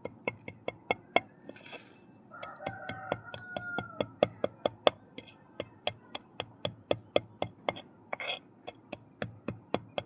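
Mud being crushed, giving a quick run of sharp cracks, about four a second, with a couple of short crumbling hisses.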